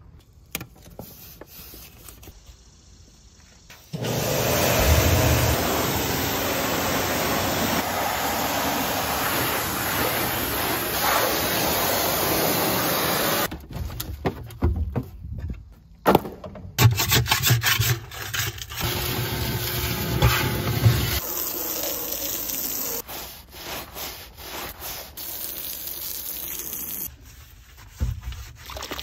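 Hand scrubbing and scraping caked dirt and grease off a compact track loader's surfaces, then a microfibre cloth rubbing over panels. There is steady rubbing from about four seconds in, a break with a few knocks, then more scrubbing that grows softer toward the end.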